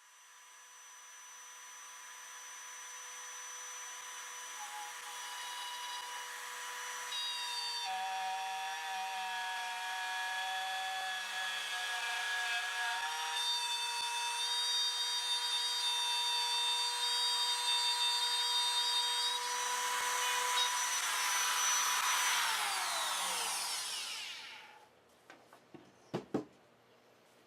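Trim router with a quarter-inch upcutting spiral bit running at a steady high whine as it cuts a channel in half-inch MDF, the cutting noise growing louder over the first several seconds. About 22 seconds in it is switched off and winds down with a falling whine, followed by a few light knocks.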